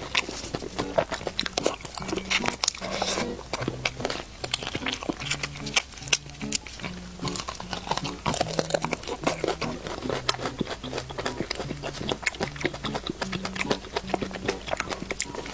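Close-miked chewing and crunching of fried chicken: many quick, irregular crisp bites and chews. Background music with a stepping bass line plays underneath.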